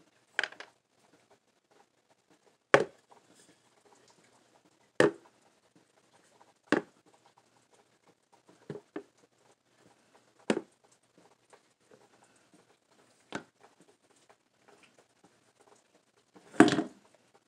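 Stainless steel mug knocked and set down on a tiled floor: about eight separate sharp knocks, one every one to three seconds, the last the loudest.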